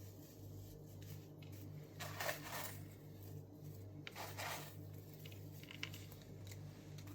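Faint kitchen handling sounds, soft scrapes and rustles about two and four seconds in, as fried onion flakes and garlic are put onto a burger, over a steady low hum.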